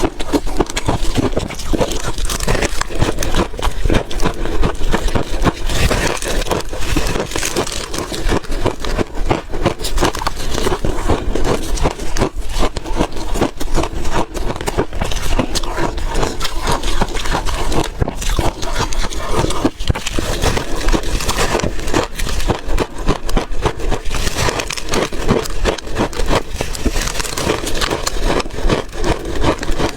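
Refrozen ice cake being bitten and chewed close to the microphone: continuous loud crunching and cracking of hard ice.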